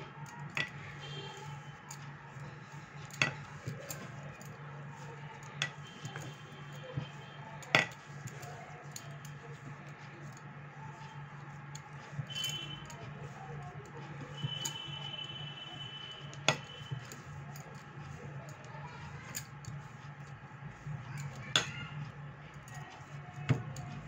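Bangles and a glass baking dish clinking sharply every few seconds as hands knead dough, over a steady low hum.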